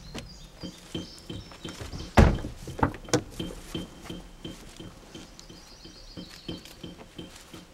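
A loud thunk about two seconds in and a lighter knock about a second later, over a regular high chirp repeating about three times a second.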